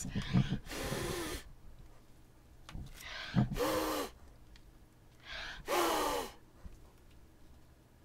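A person blowing hard onto wet acrylic pour paint to push it across the canvas: three forceful breaths, each under a second long, about two and a half seconds apart.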